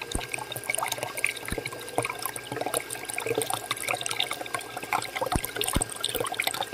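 A thin stream of liquid trickling and splashing from a pipe spout into the filler hole of a small toy tank trailer, with a faint steady tone underneath.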